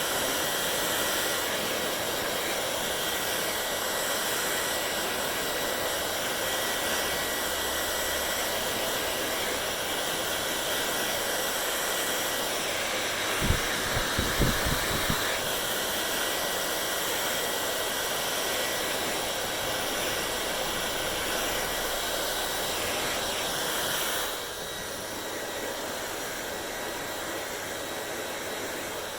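Hair dryer blowing steadily, a rushing airflow with a faint motor whine. A few low knocks come about halfway through, and the sound gets a little quieter some five seconds before the end.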